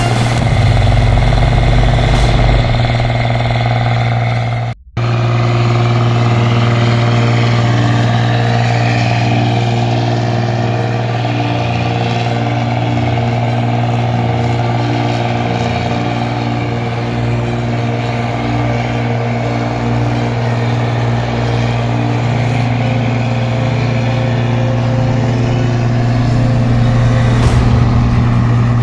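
Combine harvester engine running steadily under load, a loud continuous hum. The sound cuts out for an instant about five seconds in.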